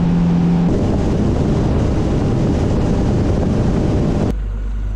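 Motorboat running at speed: a steady engine drone under heavy wind rushing over the microphone. A little past four seconds in the sound changes abruptly to a quieter, lower, steadier engine hum.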